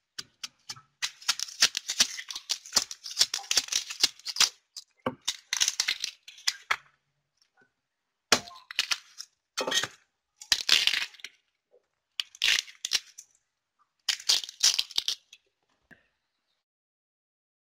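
Outer sheaths being stripped off fresh bamboo shoots by hand: crackling, tearing bursts, one of about three seconds and five shorter ones, with pauses between.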